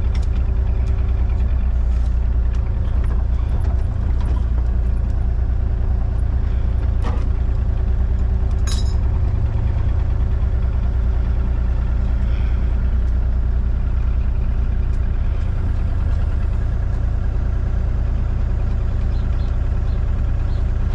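Heavy equipment engine running steadily at low throttle, with a couple of short metallic clinks partway through.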